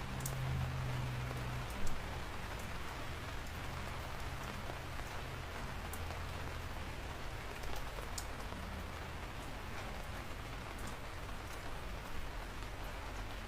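Steady rain falling, with scattered sharper ticks of single drops striking a surface and a brief louder drop hit about two seconds in.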